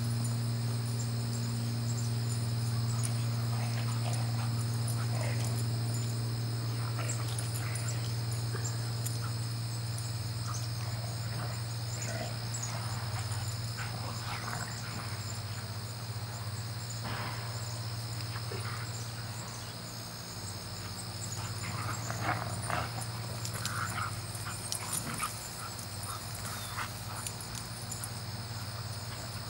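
Siberian huskies play-fighting, with scattered short yips and whines that come more often in the second half. Under them run a steady low hum, which is the loudest sound throughout, and a steady high whine.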